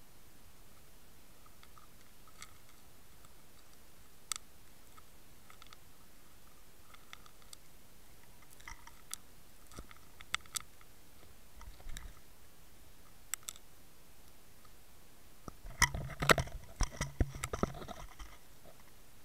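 Scattered sharp clicks and crunches underwater from fish feeding on bait among stones on a riverbed, with a dense run of louder clicks and knocks near the end.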